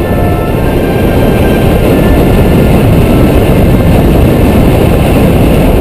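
Wind buffeting the microphone of a camera on a paraglider in flight: a loud, deep rumble of airflow that builds over the first second or two, then holds steady.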